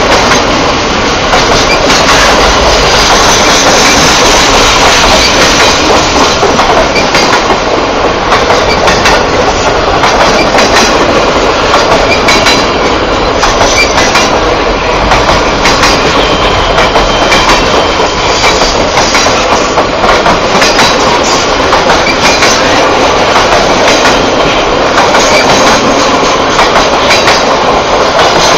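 A RoadRailer train of Triple Crown highway trailers riding on rail bogies rolls past close by. Its steel wheels make a steady loud rumble, with rapid clickety-clack over the rail joints.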